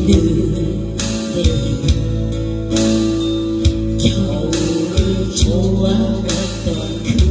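Live amplified music: a woman singing a Korean ballad into a microphone over acoustic guitar, with a steady beat.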